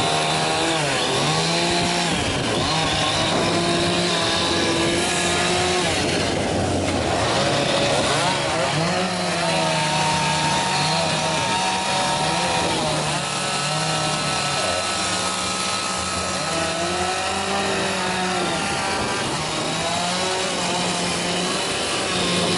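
Chainsaw running steadily while carving wood, the engine pitch rising and falling with the throttle.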